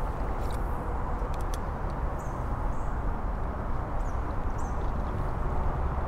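Steady low rumble of distant highway traffic, with a few faint clicks about a second in and some short, faint high chirps.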